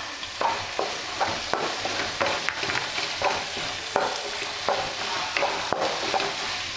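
Wooden spatula stirring sliced onions, tomato and green and yellow capsicum in a non-stick kadai, scraping against the pan about three times a second over the steady sizzle of the vegetables frying in oil.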